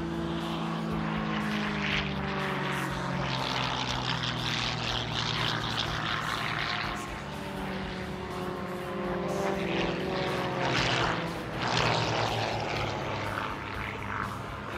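Game Composites GB1 GameBird aerobatic plane's six-cylinder Lycoming engine and propeller running hard through manoeuvres. The engine note slides down and back up, and the propeller noise swells to its loudest about eleven to twelve seconds in.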